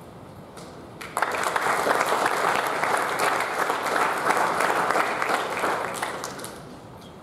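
Audience clapping, starting suddenly about a second in and dying away after about five seconds.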